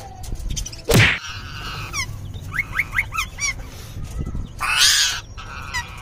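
A flock of budgerigars chirping and warbling in short quick notes, broken by two loud harsh squawks, one about a second in and one near the five-second mark, as rose-ringed parakeets attack them in the aviary.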